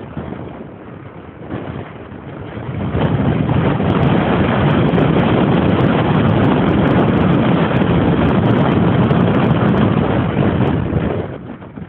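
Strong wind buffeting the microphone: a gust rises about three seconds in, blows loud and steady, and eases shortly before the end.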